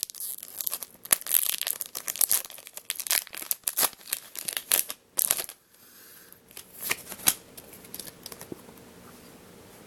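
Foil wrapper of a Pokémon trading-card booster pack being torn open and crinkled: a dense run of sharp crackling for about five and a half seconds, then a couple of brief crinkles about seven seconds in.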